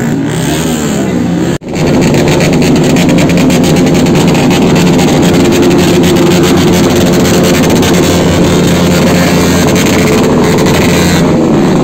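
Background music for about a second and a half, cut off abruptly. Then a motorcycle engine runs loudly and held fairly steady, with a fast pulsing exhaust note.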